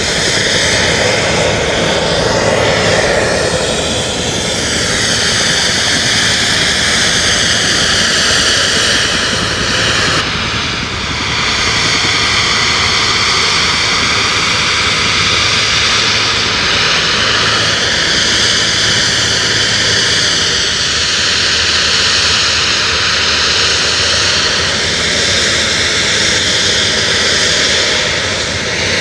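Small jet turbine engines of a jet-powered carbon-fibre wingsuit running in flight: a loud, steady rushing noise with a high whine whose pitch drifts up and down. About ten seconds in, the whine changes abruptly.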